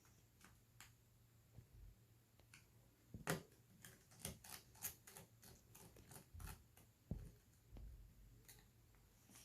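Faint, irregular clicks and taps of small tools and tiny metal parts being handled while a smartphone is taken apart. The clicks are densest and loudest in the middle stretch, with one sharper tap about three seconds in.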